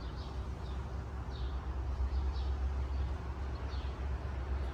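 A steady low rumble, with small birds chirping faintly in short falling notes several times over it.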